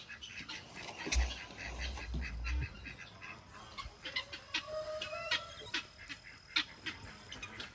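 Farm poultry making scattered, fairly faint calls, with many short clicks and a low rumble from about one to nearly three seconds in.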